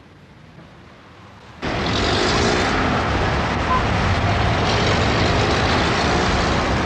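Low hiss, then an abrupt cut about a second and a half in to loud, steady city street traffic heard from a moving vehicle with its window open.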